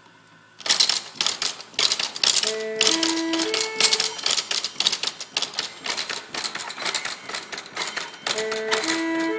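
A musical automaton organ playing: a dense, rapid mechanical clatter of its works, starting under a second in, with a short phrase of held organ notes about three seconds in and again near the end.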